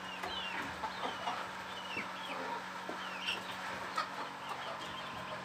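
Domestic chickens clucking, with many short, high chirps scattered throughout, over a low steady hum.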